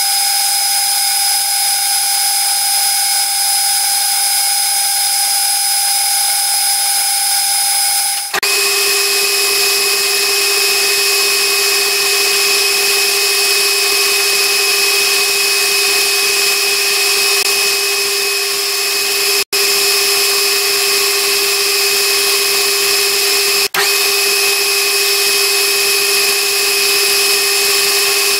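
Metal lathe running with a steady whine while a narrow ground grooving tool undercuts a spinning bronze crosshead casting. The whine drops to a lower steady pitch about eight seconds in, and the sound breaks off twice for an instant later on.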